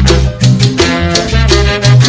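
Salsa band playing: a repeating bass line under a steady rhythm of percussion strokes, with other instruments sounding held notes above.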